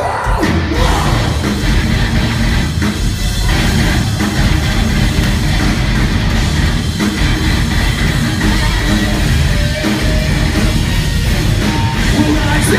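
Loud live rock band playing: electric guitars and drums going at full volume, heard from the audience.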